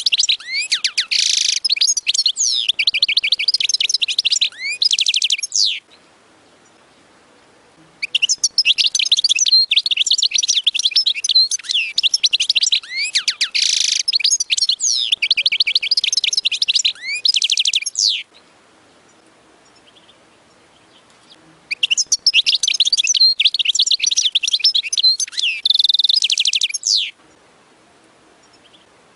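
European goldfinch singing: three long bouts of fast, high twittering song, with pauses of a few seconds between them.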